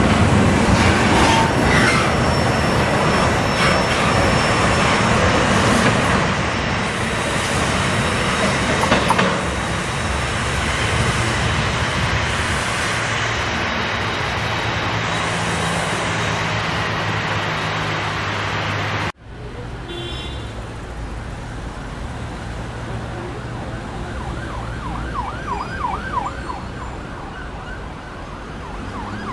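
Double-stack container freight train running past on steel rails: a steady rush of wheel-and-rail noise that eases as the train draws away, then cuts off abruptly about two-thirds of the way through. A quieter stretch follows, with a repeating, wavering rise-and-fall tone over the last few seconds.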